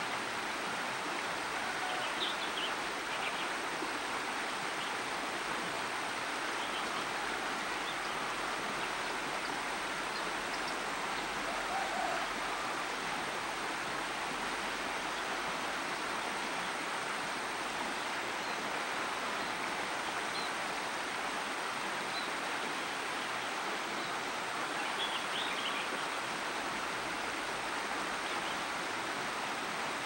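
Steady, even rushing background noise in the open air, with a few faint, brief bird chirps about two seconds in, again around seven seconds, and near the end.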